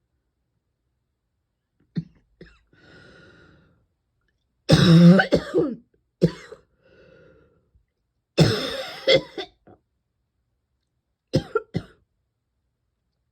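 A person coughing in fits, from a throat and lungs that stay tickly: a single cough about two seconds in, then two longer coughing bouts a few seconds apart with quiet breaths between, and two quick coughs near the end.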